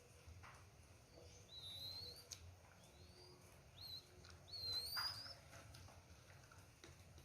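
A dove chick giving a few faint, high, thin rising squeaks: begging calls of a young bird being hand-fed. A few soft clicks are heard between them.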